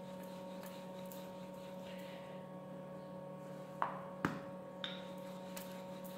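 A steady electrical hum under soft rolling of paratha dough on a floured stone counter with a wooden rolling pin. About four seconds in come two sharp knocks and a lighter third one as the wooden pin is set down on the counter and the dough is turned by hand.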